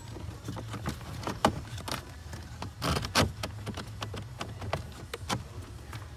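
Clicks, taps and scrapes of a new pleated cabin air filter being slid into its plastic housing behind the glovebox, with louder knocks about one and a half and three seconds in. A low steady hum runs underneath.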